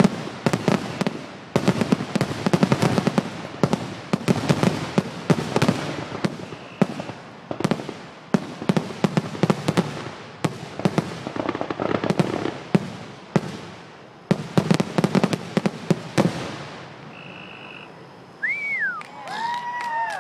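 Fireworks finale: a rapid barrage of overlapping bangs and crackling from many shells for about sixteen seconds, then the barrage stops. Near the end come a couple of high calls that rise and fall.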